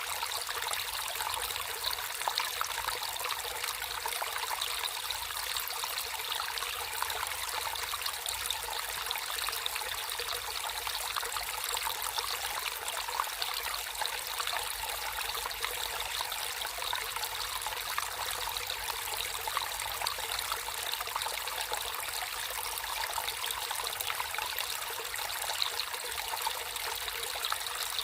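Natural stream of water flowing steadily, trickling and splashing with a fine, even patter.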